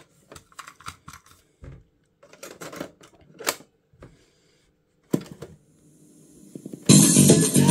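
Piano-key transport buttons and tape mechanism of a Sharp GF-382 boombox's cassette deck: a string of mechanical clicks and clunks as the keys are pressed, the sharpest about three and a half and five seconds in. Music starts playing from the tape near the end.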